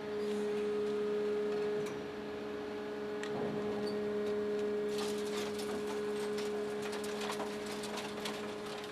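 Electric-driven hydraulic system of a Sierra shear/baler/logger running with a steady hum. From about five seconds in, scattered metallic clanks and knocks of scrap are heard over it.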